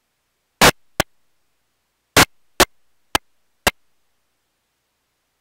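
A string of sharp clicks or pops, about seven in five seconds and irregularly spaced, with nothing but dead silence between them.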